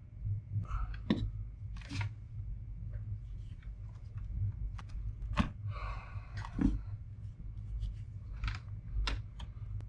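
Scattered clicks, taps and light scraping of gloved hands and a small hand tool working on an opened 1990s laptop's plastic case and circuit board, with about half a dozen sharper clicks spread through.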